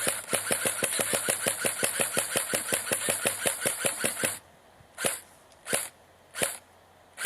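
Airsoft electric gun firing full-auto, rapid even clicks of about ten shots a second over a high motor whine, for about four seconds before stopping abruptly. After that comes a string of single sharp sounds, less than a second apart.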